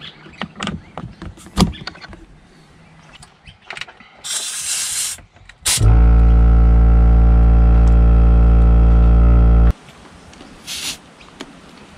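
Airbag Man onboard air compressor kit in use. The air hose coupling clicks and knocks as it is connected, and air hisses briefly twice. The compressor then runs with a loud steady hum for about four seconds and cuts off abruptly. A short hiss near the end comes as the inflator goes onto a tyre valve.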